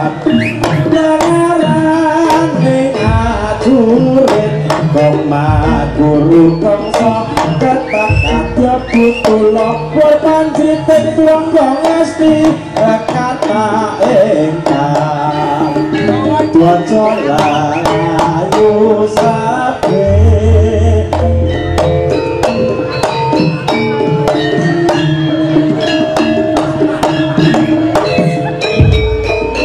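Live Javanese jaranan ensemble music: kendang hand drums drive a busy rhythm under a wavering, ornamented melody line, and deep low strokes sound a few times, at about 3, 5 and 8 seconds and again near the end.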